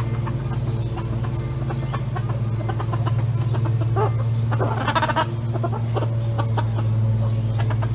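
Chickens clucking, with a burst of calls about four to five seconds in, over a steady low mechanical hum.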